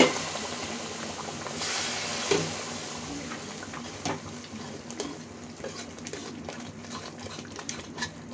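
Metal spoon stirring and mashing pav bhaji in a metal kadhai, scraping and tapping against the pan over the sizzle of the hot, freshly thinned mixture. The sizzle is strongest in the first couple of seconds; after that the spoon's taps come thick and fast.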